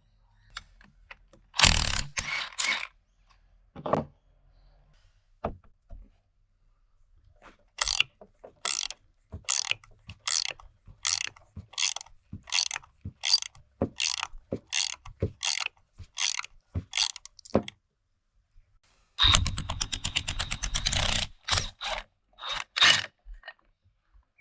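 Hand ratchet wrench clicking, first in slow even strokes about one and a half a second, then spun in a fast run of clicks, with a few separate metal knocks early on.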